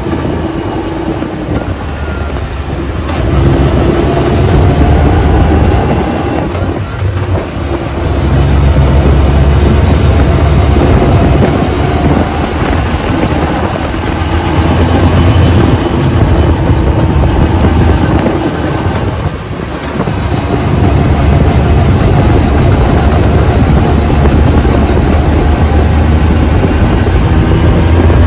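Side-by-side off-road vehicle driving on a dirt trail, heard from inside the open roll cage. The engine runs with a heavy low rumble of wind and ride noise, easing off briefly a few times.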